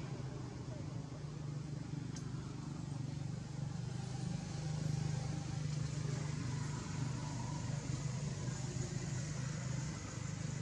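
Steady low hum and rumble under a faint hiss, with a faint click about two seconds in.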